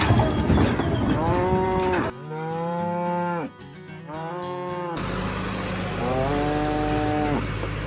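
Cattle mooing: four long calls one after another, each holding a steady pitch, over a rough background noise that is loudest in the first second.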